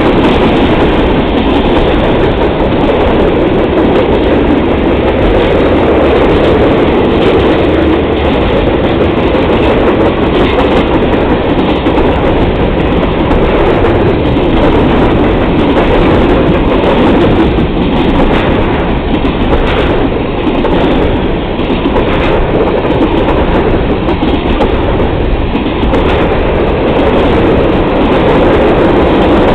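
Freight train cars rolling past at steady speed: a loud, continuous noise of steel wheels on rail, with repeated wheel clicks.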